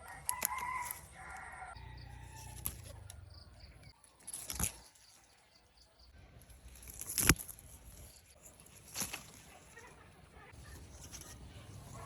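A chicken call in the first second or so, then a few sharp knocks, the loudest about seven seconds in, over a quiet rural background.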